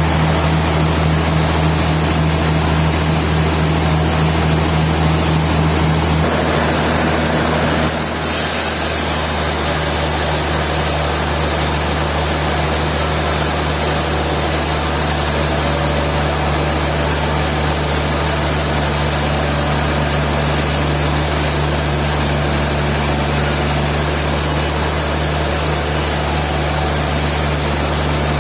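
Sawmill machinery running steadily with a loud, low engine hum. The sound changes about eight seconds in, with more hiss from then on.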